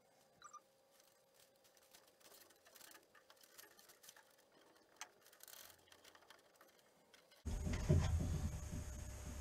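Mostly near silence with faint scattered clicks. About seven and a half seconds in, louder rustling starts as a wiring loom is handled and pushed down inside the A pillar of a bare car body shell.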